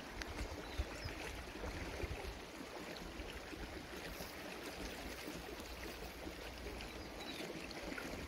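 Faint, steady rushing background noise with uneven low rumbling and a few light clicks.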